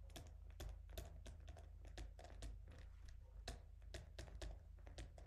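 Faint, irregular clicks, a few a second, from handwriting being drawn stroke by stroke on a computer, over a steady low hum.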